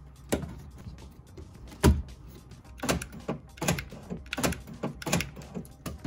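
Clicks and knocks of a car door's lock and inside handle assembly being worked into place inside the door. A sharp knock comes about a third of a second in and a heavier one near two seconds, then from about three seconds on a run of quicker clicks as a socket ratchet turns the assembly's bolts.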